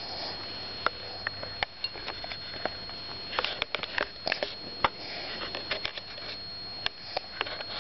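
A five-month-old baby's small wet mouth clicks and lip smacks as he mouths his fingers close to the microphone. They come scattered and irregular, a few in quick clusters around the middle.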